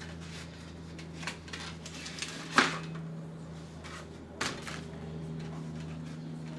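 Packaging being cut and pulled off a boxed BMX bike: scattered clicks and rustles, with a sharp click about two and a half seconds in and another about four and a half seconds in, over a steady low hum.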